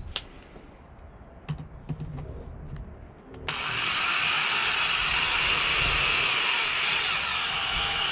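A few light clicks of a screw and bracket being handled, then about three and a half seconds in a handheld electric drill starts and runs steadily with a high whine, driving a screw through a metal corner bracket into a wooden board.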